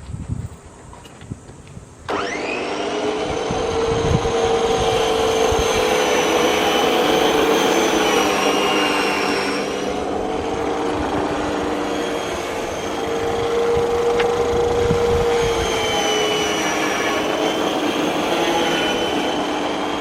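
Makita MLM-2851 reel mower switched on about two seconds in, its motor and spinning reel rising to a steady whine. The pitch dips a little now and then and starts to fall near the end. The owner takes the abnormal noise for a failing reel-blade shaft bearing.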